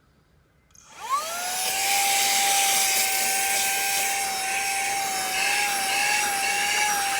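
Saker HL122 battery-powered 3-in-1 handheld vacuum switched on about a second in: its motor whine rises quickly to a steady high tone over a rush of suction air.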